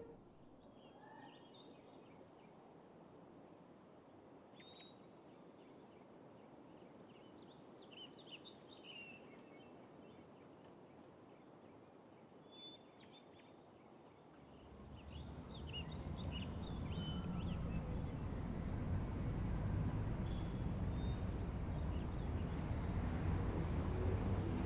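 Faint birdsong, a few scattered chirps over a quiet outdoor hush; about fifteen seconds in, a low steady rumble of road traffic swells up and stays.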